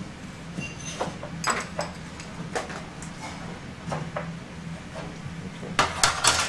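Spoons and serving utensils clinking and knocking against plates and bowls, in scattered light taps with a louder clatter near the end, over a steady hum.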